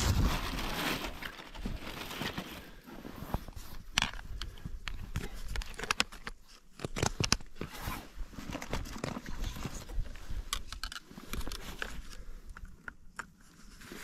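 Close, irregular rustling and crinkling with scattered small clicks and crackles.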